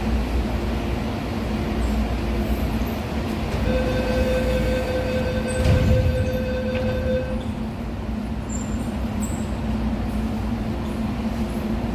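MTR Tung Chung Line CAF train standing at the platform with a steady hum. About four seconds in, a steady door-closing warning tone sounds for about three and a half seconds, with a single thud near its middle as the doors shut.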